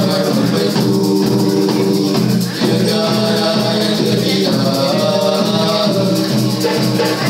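A nasyid vocal group singing in harmony into microphones, backed by hand drums and a shaker keeping a steady beat.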